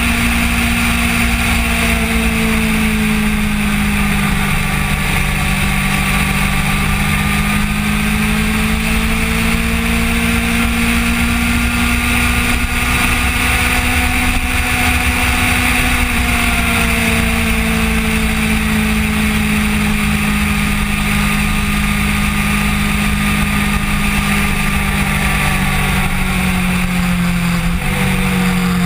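Kawasaki Ninja motorcycle engine running at road speed, its pitch drifting gently up and down with the throttle, under a steady rush of wind on the camera's microphone.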